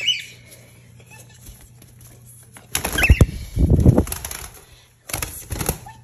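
Cockatiel wings flapping in two loud flurries, about three seconds in and again near the end. A short rising squeak at the start and a few brief chirps during the first flurry come from the cockatiels.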